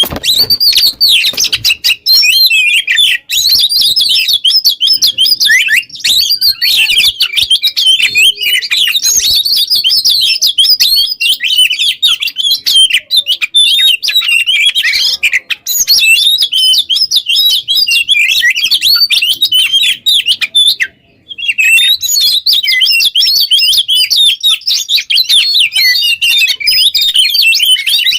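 Oriental magpie-robin (kacer) in full song: a loud, continuous, fast and varied warbling of whistles and chirps. There is one brief break about 21 seconds in.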